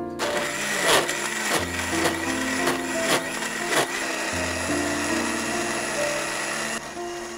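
Electric countertop blender running, chopping green leaves in water, with a few sharp knocks in the first four seconds; it stops near the end.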